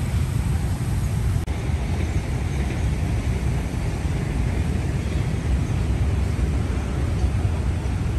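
Steady outdoor background rumble: a continuous low-pitched noise with a hiss above it and no distinct events.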